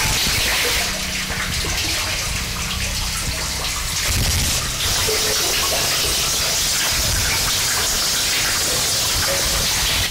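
Harsh noise music played live: a dense, unbroken wall of hiss and rumble across the whole range, easing slightly for a few seconds about a second in.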